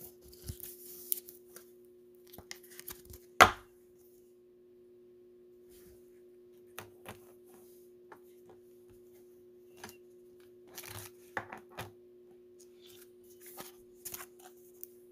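Trading cards and a foil card-pack wrapper being handled: scattered crinkling and light taps on a table, with one sharp click about three and a half seconds in. A faint steady hum runs underneath.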